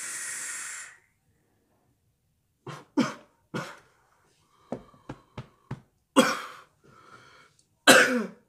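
A steady hiss from a hard draw on a Tsunami 24 rebuildable dripping atomizer stops about a second in. After a short gap comes a run of coughs from the big lungful of vapor, with a few light clicks in between.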